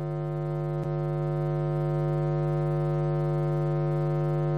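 A keyboard holding one steady, organ-like chord that swells slightly in loudness, with a faint click about a second in.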